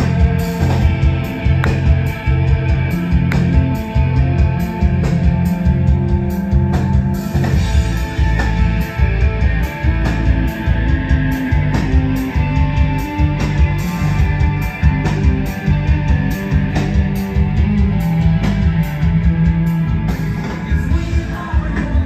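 Live rock band playing loudly, electric guitars, bass guitar and drums through a large outdoor PA, heard from among the crowd.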